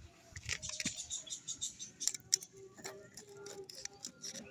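Hand tools clicking and tapping in an irregular run of light, sharp clicks while working on a front wheel bearing.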